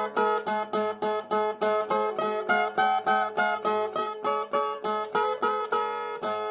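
Brazilian ten-string viola played alone between sung verses: an even, repeating figure of plucked notes, about three a second, that spaces out and rings longer after about four seconds.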